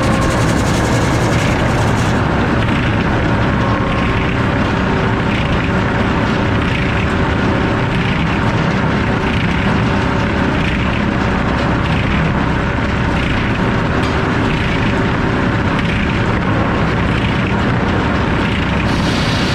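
A circular sawmill's F-pattern inserted-tooth saw blade running and sawing, a loud, steady mechanical noise with a faint repeating pulse. A high hiss drops away about two seconds in and returns near the end.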